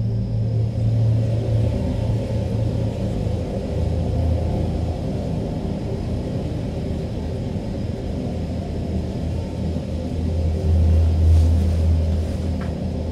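Steady low rumbling drone of an eerie film score, with several held low tones, swelling a little near the end.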